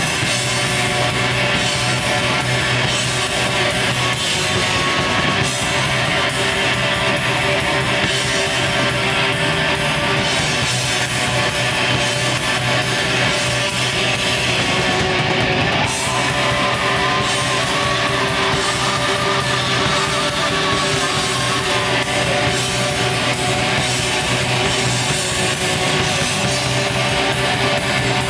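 Black metal band playing live: a dense, unbroken wall of guitar over drum kit, with rapid, evenly spaced cymbal strokes.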